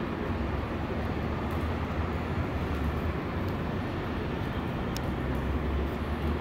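Steady low rumble of urban background noise, with a faint hum running through it and a faint tick about five seconds in.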